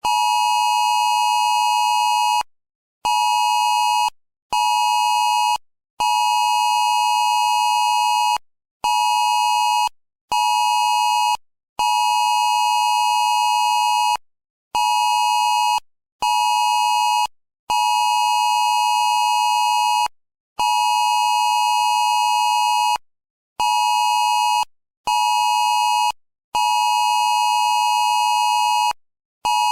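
Amber Alert emergency attention tone: a steady, high, buzzy tone sounded in a repeating pattern of one long blast followed by two short ones, with brief gaps between.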